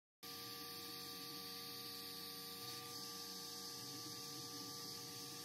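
Atezr P10 Combo 10 W diode laser engraver running while it cuts plywood: a faint, steady hum with a few constant tones, starting suddenly a moment in.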